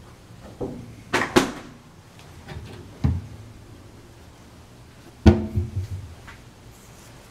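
Wooden kitchen cabinet doors being opened and shut: a series of knocks and clacks, the loudest bang about five seconds in, followed by a short rattle.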